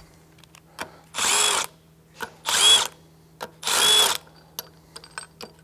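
Compact cordless driver running in three short bursts as it backs the bolts out of a bearing puller on a steel gear case, with light metal clicks between the runs.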